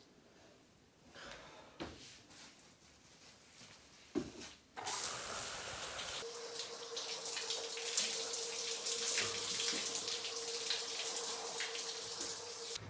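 Faint brushing strokes of a soft broom on a wooden floor, then about five seconds in the steady hiss of water spraying from an overhead shower head, with a steady hum underneath.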